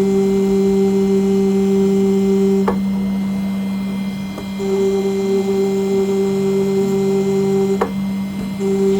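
CNC engraving machine cutting an aluminium nameplate. A steady hum runs throughout under a higher whine that cuts off with a click about 3 s in and again near 8 s, then starts again after a pause each time.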